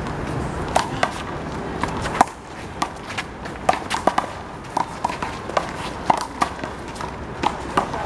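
Handball rally: a small rubber handball smacked by players' hands and slapping off the concrete wall and court, heard as many sharp, irregular smacks.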